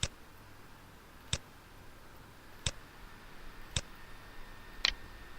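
Computer mouse clicking: five single sharp clicks, each a little over a second apart, as points of a line are placed in a CAD sketch.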